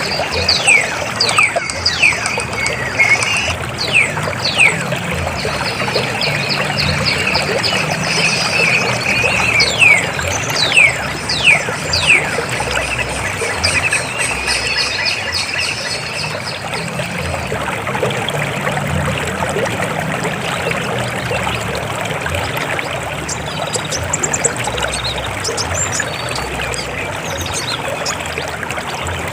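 River water flowing and trickling in a steady rush. In the first half, a run of quick falling whistles sounds over it.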